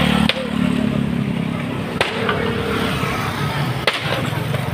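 A motorcycle engine running close by stops abruptly about a third of a second in. Then a sledgehammer strikes a slatted wooden bench, breaking it up, three sharp blows about two seconds apart.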